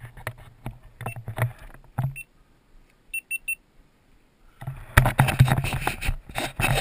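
Gear and clothing rustling and knocking close against a body-worn action camera's microphone. About three seconds in come three quick, high electronic beeps, and from about five seconds on there is loud, dense rustling and buffeting on the microphone.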